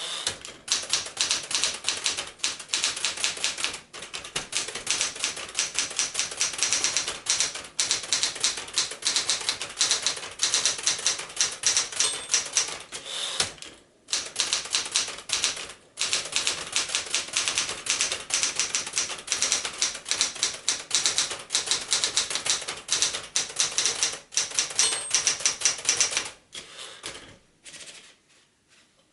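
1973 Smith-Corona Galaxie Twelve manual portable typewriter being typed on: a fast, dense run of keystroke clacks. There are short breaks about halfway through, and the typing stops a few seconds before the end.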